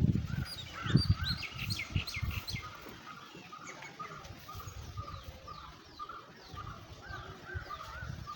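Several birds chirping: many short, arched notes repeated over and over, with quick downward-sweeping chirps that are busiest in the first few seconds. A low rumble underneath fades out about three seconds in.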